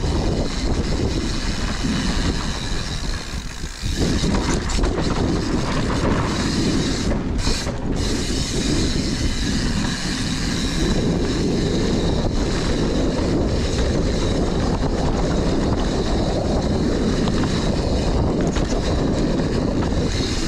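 Mountain bike descending a dirt trail: wind rushing over the microphone and tyres rolling on dirt, with the bike's chain and parts rattling over bumps. The noise briefly drops about three and a half seconds in.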